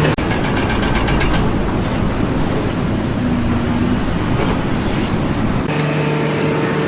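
Loud rumbling noise of a vehicle or heavy machine. About five and a half seconds in it cuts to a steadier hum with a few held tones.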